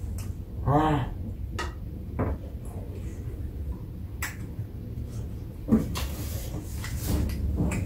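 Eating sounds at a table: scattered small clicks and knocks, the sharpest a little before six seconds in, with a short hummed 'mm' about a second in.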